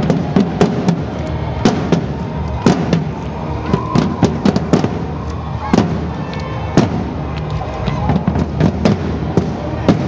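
Marching drum corps beating rope-tensioned field drums: a run of sharp, loud drum strikes in a marching rhythm over the murmur of a street crowd.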